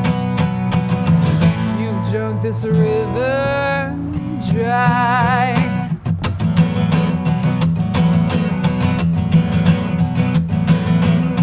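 Acoustic guitar strummed in a steady rhythm while a woman sings, gliding between notes and then holding one with vibrato for about a second and a half.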